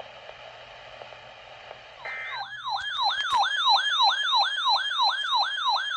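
Weather alert radio's built-in siren alarm: faint receiver hiss, then a brief burst of data tones about two seconds in, then a loud, rapidly repeating rising-and-falling wail at about three cycles a second. It signals that the radio has received a new warning, here a tornado warning.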